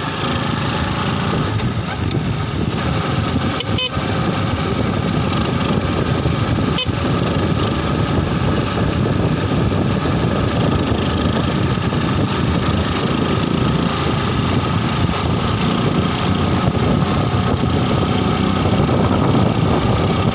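Motorcycle engine running under way, pulling up from about 24 to 44 km/h with a shift from third into fourth gear. Two brief knocks come about four and seven seconds in.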